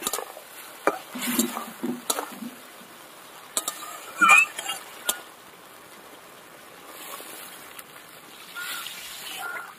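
A few knocks of a wooden spatula on the kadai in the first two seconds, then water poured into the hot kadai over fried potatoes in mustard paste, a faint steady pouring sound.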